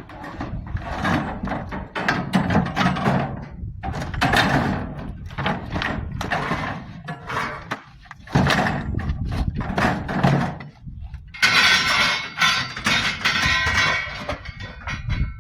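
Scrap metal being loaded and stacked onto a truck bed: repeated knocks, thuds and clanks, with denser metallic rattling and ringing in the last few seconds.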